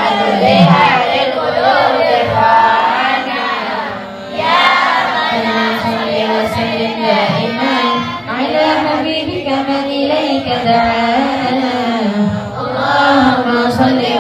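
Voices singing a qasidah, an Islamic devotional song, over musical accompaniment, with a brief pause between phrases about four seconds in.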